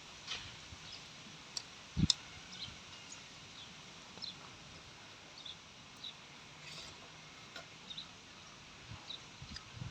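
Faint close-up eating sounds: small wet mouth clicks and chewing, scattered irregularly, with one dull thump about two seconds in.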